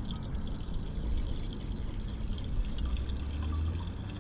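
Gasoline pouring through a plastic funnel into a mini bike's chrome fuel tank, a steady trickle of liquid.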